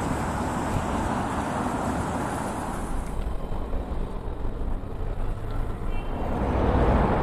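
City street traffic noise: cars running past in a steady wash of sound. The sound changes about three seconds in, with less hiss in the upper range.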